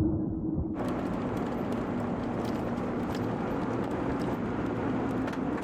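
A truck driving, with its engine running steadily under road noise. The sound brightens suddenly about three quarters of a second in, and faint scattered clicks follow.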